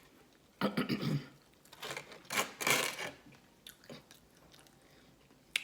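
Hands breaking into a cooked blue crab: a short throat sound about a second in, then a couple of seconds of crackling shell and rustling, and a few faint clicks near the end.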